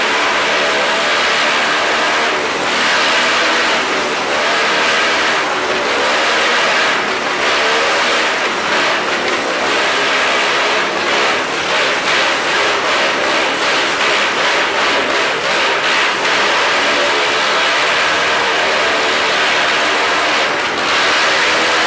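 Motorcycle and kart engines running hard as they circle the vertical wooden wall of a Wall of Death drum, the engine note swelling and dipping continuously.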